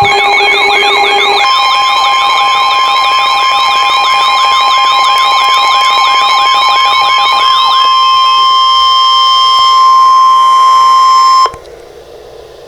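Electronic emergency-alert alarm tones: a warbling, siren-like tone repeating about four times a second over steady tones. The warbling stops about eight seconds in, and the steady tone runs on until it cuts off suddenly near the end, leaving faint hiss and a few clicks.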